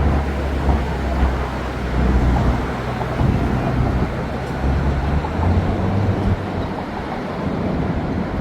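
A vehicle in motion: dense steady travel noise over a low engine hum, the hum easing off about five seconds in.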